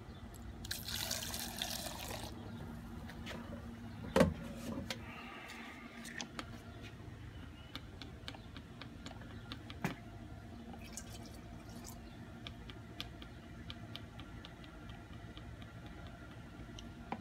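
Two-stroke fuel mix being poured into a fuel can: a short hissing, splashing pour about a second in, a sharp knock around four seconds in, then scattered light ticks and drips.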